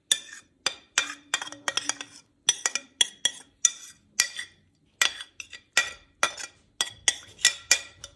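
A metal spoon clinking and scraping against the rim of a bowl in a long run of sharp taps, many in quick pairs, as the last of the egg-and-milk mixture is scraped out of the bowl.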